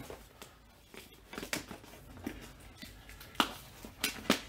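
Cardboard Priority Mail box being handled and pulled open: rustling with a few sharp snaps and clicks of the cardboard, two louder ones near the end.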